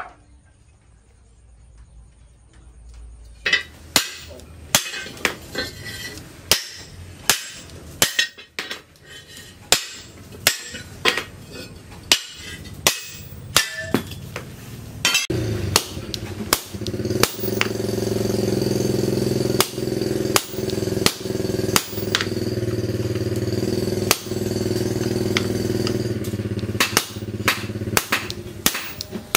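Hand hammer striking steel on a steel post anvil, sharp metal-on-metal blows a little under a second apart, starting about four seconds in. Near the end the blows fall on a hot chisel cutting through a red-hot leaf spring. A steady mechanical drone runs under the blows through the middle and later part.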